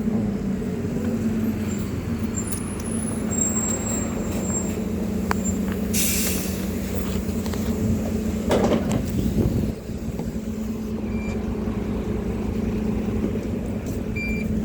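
Diesel bus engine running steadily at a stop, with a short hiss of air brakes about six seconds in.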